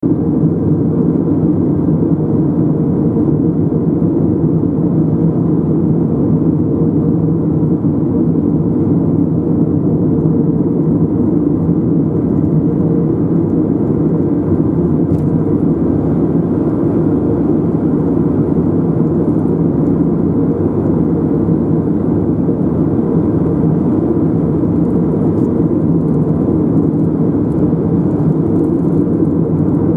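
Steady road noise of a car driving at constant speed: an even, low rumble of tyres and engine with no change in pace.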